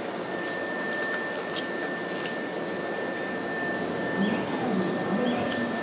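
Railway station platform ambience: a steady hum of background noise with a thin, steady high tone, and a voice briefly heard about four seconds in.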